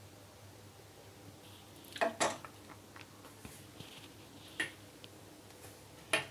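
A few light knocks and clinks of a plastic ladle against a stainless-steel saucepan and a glass bowl as kheer is ladled out: two close together about two seconds in, one near the middle and one near the end.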